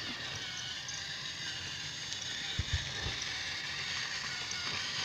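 Battery-powered toy train running along its track: a steady whir and rattle, with a few soft low thumps about halfway through.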